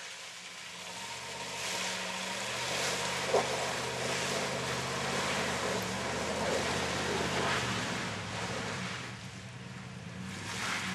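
Chevrolet pickup engine working hard as the truck churns through a mudhole, getting louder about a second in and holding, over the rushing of spinning tyres and splashing mud and water. A single sharp knock about three seconds in.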